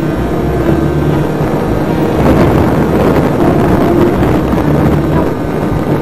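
Electric motor and pusher propeller of a HobbyKing Bix3 foam RC plane running steadily in flight, heard from an onboard camera right behind the prop, with wind rushing over the microphone, louder from about two seconds in.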